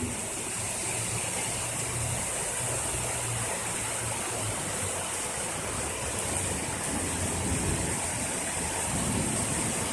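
Heavy downpour of rain, a steady loud hiss, with water pouring and splashing off a roof.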